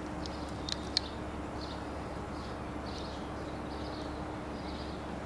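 City street ambience: a steady background hum and noise, with faint high chirps of small birds repeating through it and a few sharp clicks about a second in.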